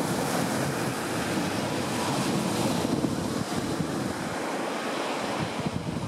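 Ocean surf breaking and washing up the beach, with wind buffeting the microphone in gusts.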